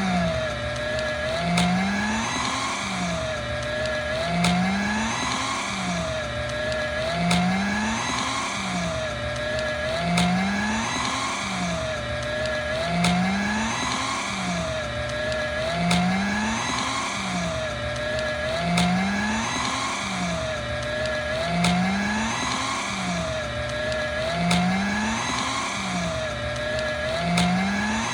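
Electric paper shredder running and cutting through stiff, hard paper. It makes a continuous grinding whine whose pitch swoops up and down in the same cycle about every three seconds, repeated as a loop.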